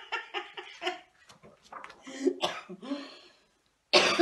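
A woman laughing in short, quick bursts, then a loud cough into her hand near the end.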